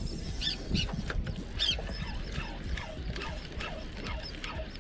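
Seabirds calling over the water, many short overlapping calls in quick succession, over a steady low rumble.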